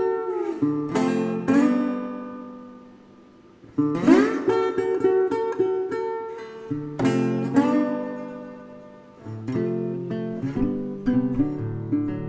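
Background music on acoustic guitar: strummed chords left to ring and fade away, with quicker, busier playing in the last few seconds.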